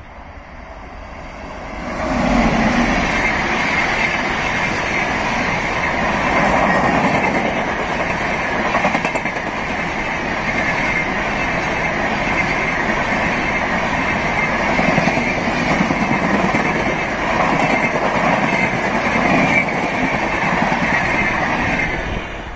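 Indian Railways passenger train of LHB coaches hauled by an electric locomotive passing close by at speed: the rumble and clatter of wheels on rail swell up about two seconds in, hold steady as the coaches go by, and drop away near the end as the last coach passes.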